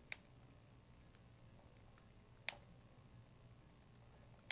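Three sharp clicks, about two seconds apart, with fainter ticks between: a hex driver working the screws that clamp the tail boom into a plastic RC helicopter frame, over near silence.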